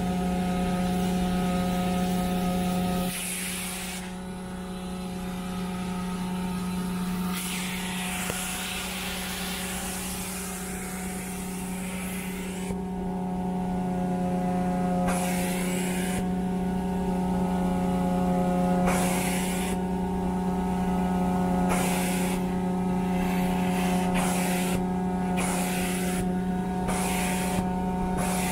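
A carpet-cleaning truckmount's vacuum drones steadily through an upholstery extraction tool, drawing a pitched hum. Short hissing bursts of cleaning-solution spray sound over it, coming closer together in the last several seconds.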